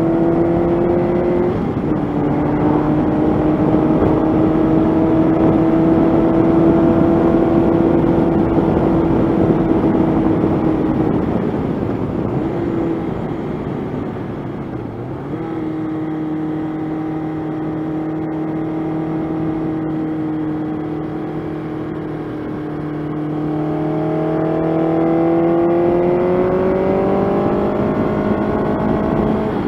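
1985 Honda CB700SC Nighthawk's inline-four engine running under way, heard from the moving bike over a rush of wind. The engine note holds steady, falls off for a few seconds just before halfway, then rises as the bike accelerates near the end.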